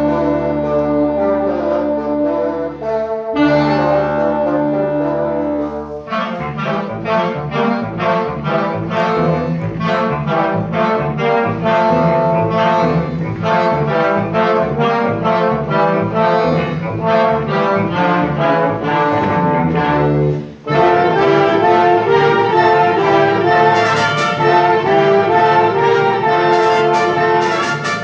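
Live ensemble music with brass instruments to the fore: held chords for the first few seconds, then a passage of quick repeated notes, a brief break about twenty seconds in, and a fuller, louder passage after it.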